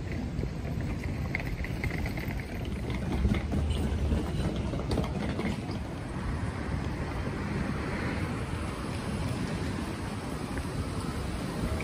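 Low, steady rumble of wind on the phone's microphone over outdoor street ambience, with a few faint light ticks in the first half.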